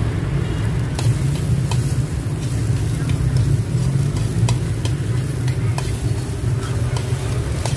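Corn kernels being stir-fried with butter in an aluminium wok: a slotted metal ladle turns and scrapes them, with scattered clicks of the ladle against the pan over a light sizzle. A steady low rumble sits underneath.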